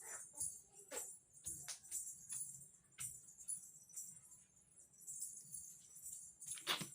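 Faint background music with a light jingling, tambourine-like percussion.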